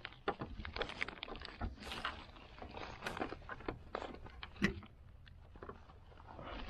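A clear plastic motorcycle windscreen being handled on bubble-wrap packing: irregular small clicks, taps and crinkles as rubber well nuts are pressed into its mounting holes. The sounds thin out for a moment past the middle.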